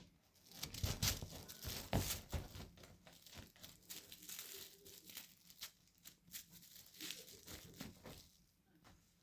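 Irregular crinkling and rustling of crinkly material being scrunched and moved about, loudest in the first couple of seconds and thinning out near the end.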